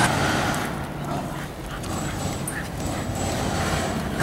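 A toy poodle puppy whimpering softly, over a steady low rumble.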